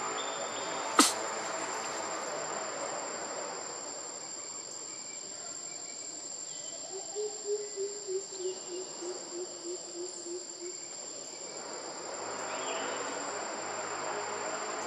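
Steady high-pitched buzzing of forest insects such as crickets or cicadas. A sharp click comes about a second in, and a run of about a dozen short low notes sounds in the middle, about three a second. Background music fades out early on and comes back near the end.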